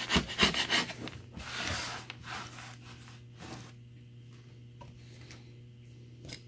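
Steel chisel scraping hot glue off a particleboard surface in a run of quick strokes, then a few lighter scrapes, after which only a low steady hum remains.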